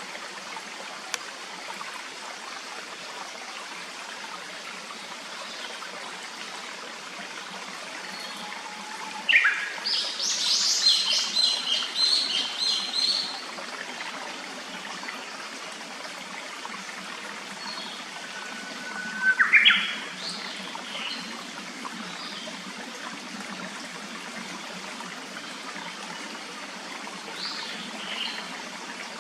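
Steady rush of a clear stream, with a songbird calling over it: a quick run of high, repeated notes about a third of the way in, a short rising call about two-thirds in, and a few faint notes in between.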